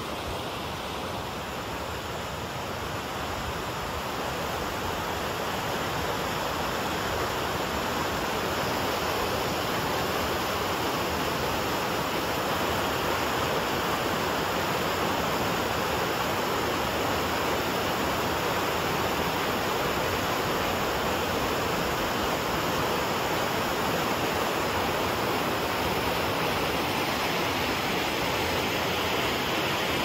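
Waterfall pouring: a steady rush of water that grows a little louder over the first several seconds, then holds.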